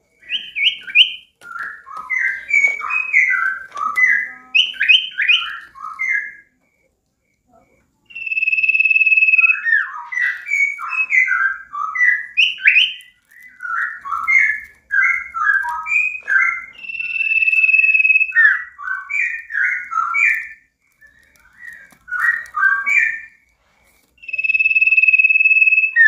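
Caged sirtu songbird singing loudly: quick runs of short, varied chirping notes, three times broken by a long, steady, high whistled note lasting about a second and a half.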